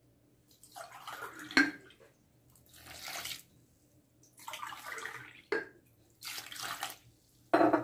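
Wire whisk stirring a wet semolina and flour batter in a glass bowl, in four separate sloshing bursts with pauses between, and a sharp click of the whisk against the glass twice.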